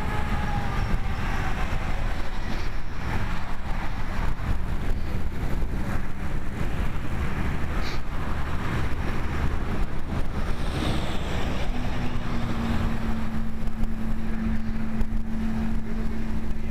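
Wind rushing over the microphone and road noise from a road bicycle riding at speed in a group, with a steady low hum coming in about two-thirds of the way through.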